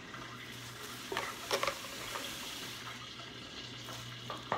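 Flour-coated chicken tenders frying in hot oil in a pan: a steady sizzle, with a few short rustles and knocks about a second in and again near the end.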